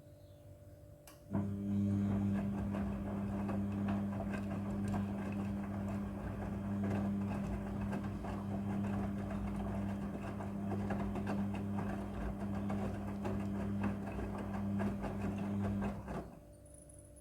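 Midea front-loading washing machine's drum turning the wet laundry during the wash cycle: a steady motor hum with the clothes tumbling and sloshing. It starts abruptly about a second in and stops abruptly near the end, one turn of the drum's stop-and-go wash action.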